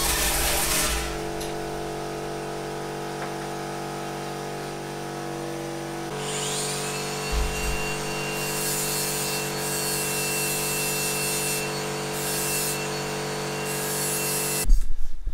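Hand-held electric power shear cutting sheet steel for about a second, then its motor running on steadily. The motor's note shifts about six seconds in, short rasping bursts follow, and it cuts off suddenly near the end.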